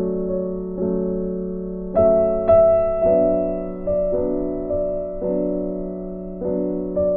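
Background music: soft piano chords, each struck and left to ring, with a new chord about every second.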